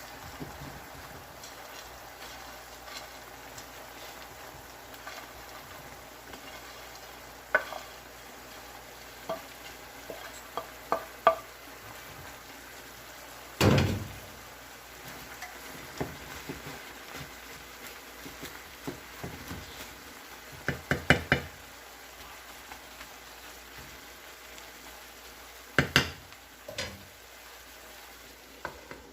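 Chicken breast and mixed vegetables frying in a pan with a steady sizzle, while a utensil stirs them, knocking and scraping against the pan now and then. The loudest knock comes about 14 seconds in, with clusters of quick clicks around 10–11, 21 and 26 seconds.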